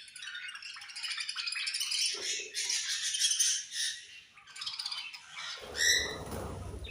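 Budgerigars chattering and chirping continuously, with one louder call about six seconds in. A low rustling noise joins near the end.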